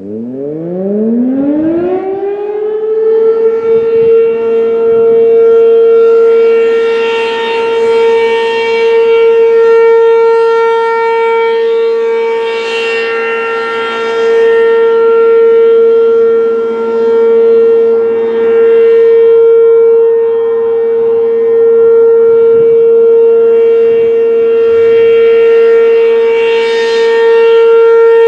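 American Signal Corporation RM-127 outdoor warning siren winding up from silence, its pitch rising over the first few seconds. It then holds a steady alert tone that swells and fades in loudness. This is a scheduled siren test.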